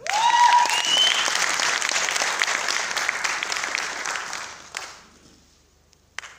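An audience in a hall applauding, with a rising cheer-like tone over the clapping at the very start; the applause dies away after about five seconds, and a single click follows near the end.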